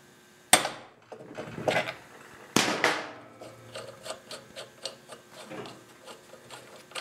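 A ball peen hammer strikes the nut on the end of a Predator engine's crankshaft three times, about a second apart, the last blow ringing. The pry bar keeps upward pressure on the flywheel, and the blows knock it loose from the crankshaft. Light metallic clicks and handling follow as the freed flywheel is worked off.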